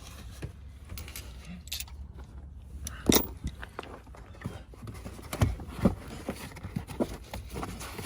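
Scattered clicks, knocks and scrapes of loose coins and debris being picked out of a pickup truck's cab, the loudest knock about three seconds in.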